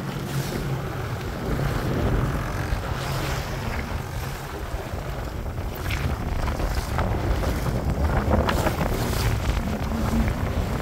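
Jet ski engine running steadily on the water, with wind buffeting the microphone and the wash of water and waves.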